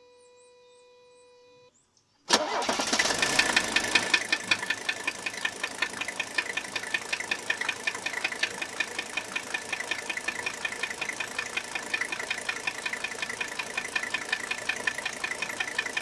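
Mercedes OM617 five-cylinder turbodiesel starting about two seconds in, loudest for the first second or two, then settling into idle with a rapid, rhythmic metallic tapping. The tapping almost sounds like rod knock, but the owner found no bearing play and bets it is injector-related: compression is leaking around cylinder two's injector crush washer.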